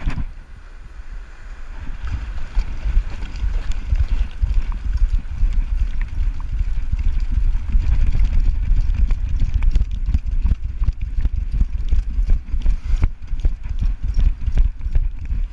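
A dog running at a quick, rhythmic gait, heard through an action camera strapped to its back: a steady run of thumps and jolts as its paws strike wet sand and shallow water. The thumps build over the first couple of seconds and then keep up evenly.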